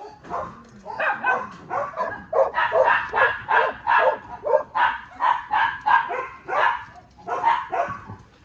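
Shelter dogs barking over and over in quick short barks, about three a second.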